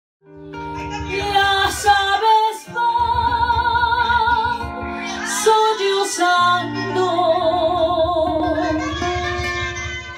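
A woman singing a Peruvian criollo song, holding long notes with vibrato over live guitar and band accompaniment. The music fades in just after the start.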